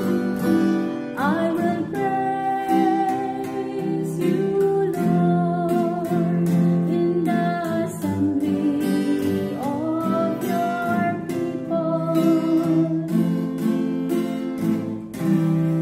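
Responsorial psalm refrain sung to strummed acoustic guitar chords; the voice slides up into long held notes over the steady strumming.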